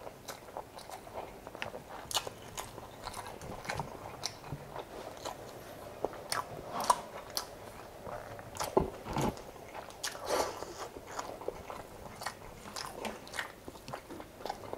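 A person chewing and biting while eating chicken adobo and rice: irregular mouth clicks and smacks, several a second, with a few louder bites.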